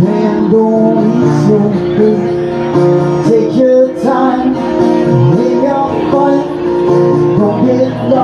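A man singing live with a strummed acoustic guitar, amplified through a PA.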